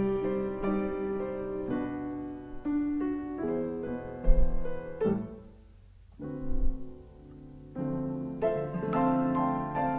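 Solo piano playing a melody over chords, easing off to a brief near-silent pause a little past the middle before the playing picks up again.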